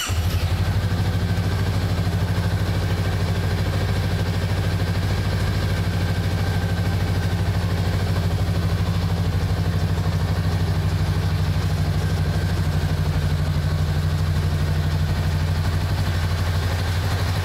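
Honda Rebel 500's 471 cc liquid-cooled parallel-twin engine idling steadily, with an even, fast low pulse and no revving.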